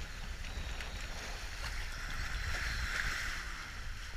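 Water rushing past the hull of a sailing boat under way at about seven knots, with wind rumbling on the microphone. The rush of water swells briefly about three seconds in.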